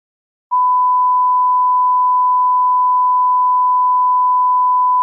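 A broadcast test tone: one pure, steady beep held for over four seconds. It starts about half a second in and cuts off suddenly at the end, as played when a broadcast is interrupted.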